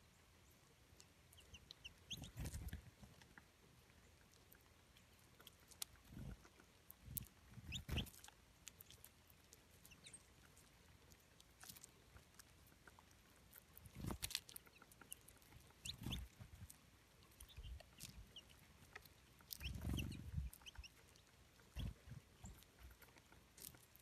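Small birds feeding on scattered seed: scattered light clicks and rustles of pecking, and several brief wing flutters as birds land and take off, with a few faint short high chirps.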